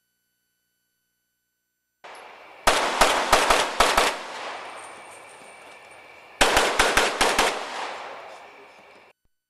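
Pistol fired in two rapid strings of about six to seven shots each, about two seconds apart, as the shooter engages targets in a practical-shooting stage.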